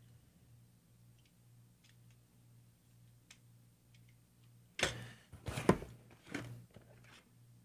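A few faint small clicks of a gun magazine being handled, over a low steady electrical hum; then about five seconds in, a couple of seconds of loud rustling and scraping as a cardboard box is rummaged through.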